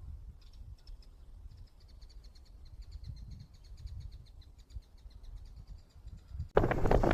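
A high, rapid chirping trill, repeated steadily for about six seconds over a faint low rumble. Near the end a loud rush of wind and vehicle noise cuts in suddenly.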